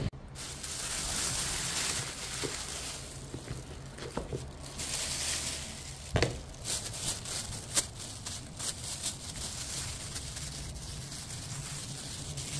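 Clear plastic carrier bag rustling and crinkling, then a metal spoon clicking against the plastic lid of a paper takeaway bowl: two sharp clicks, about 6 and 8 seconds in.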